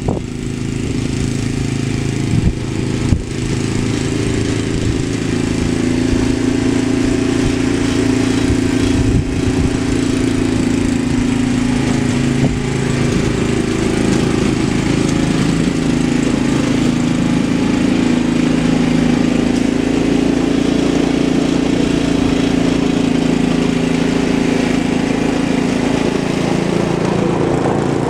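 Vintage Ariens Sno-Thro snowblower's 5-horsepower Tecumseh Snow King engine running steadily under load while the machine throws snow. It grows a little louder a few seconds in as it comes close.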